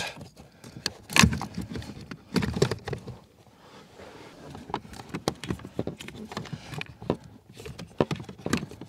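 Scattered knocks, clicks and rattles of hard plastic being handled: a car's electrical centre (fuse and relay box) being lifted and worked into its mounting under the dashboard. The loudest knocks come about a second in and around two and a half seconds in, with lighter clicks later.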